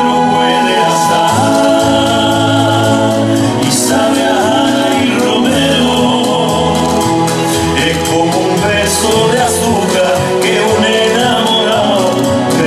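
Two male voices singing a Spanish song in a wavering, held style over instrumental accompaniment with a steady bass line.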